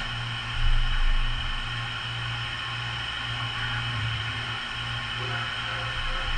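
Studer S33 CNC cylindrical grinder running: a steady machine hum and hiss from the spinning grinding wheel and spindle, with a brief louder swell about a second in.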